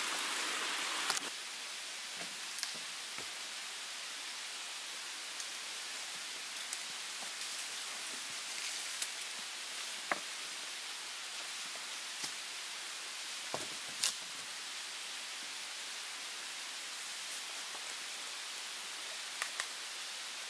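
Steady rushing hiss of a nearby mountain stream, broken about a dozen times by short, light knocks and clicks from a dead wooden branch being handled.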